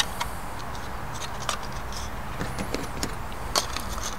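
Scattered light clicks and ticks of a thin piece of aluminum step flashing being handled and turned in the hands, over a steady low hum.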